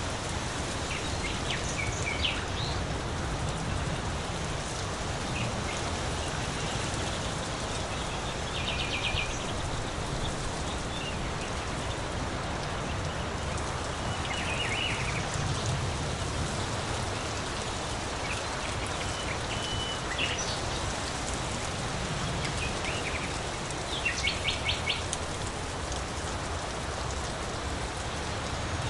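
Steady rain, with birds calling now and then over it: short high chirps and a few quick trills of rapidly repeated notes.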